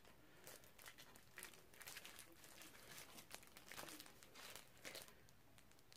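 Faint, irregular crinkling of plastic as a glove-style hand mask is handled.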